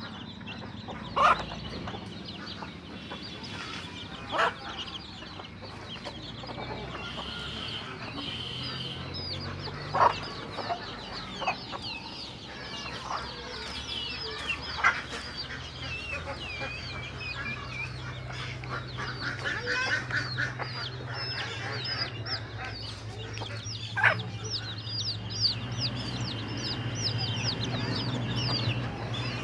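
A flock of free-ranging desi chickens feeding: a mother hen clucking while her chicks keep up many short, high peeps. A few sharp taps stand out now and then.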